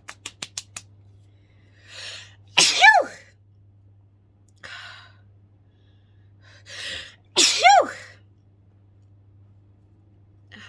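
A woman sneezes twice, about five seconds apart, her sneezes induced by sniffed ground pepper. Each sneeze is preceded by a sharp intake of breath and carries a voiced pitch that rises and then falls. A quick run of clicks comes right at the start.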